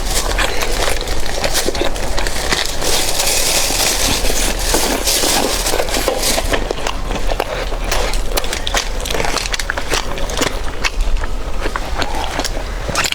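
Close-miked eating: a dense run of wet chewing, crunching and smacking clicks that keeps going without a break.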